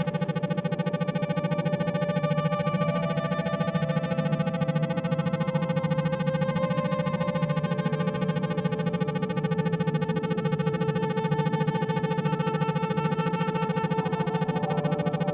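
Electronic synthesizer drone made of held tones that change pitch every few seconds over a steady low hum, the whole sound chopped by a rapid, even pulsing in the manner of isochronic tones.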